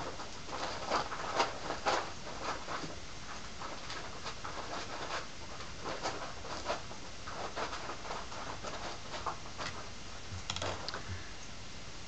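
Irregular light scratching and tapping sounds, several a second, loudest in the first two seconds.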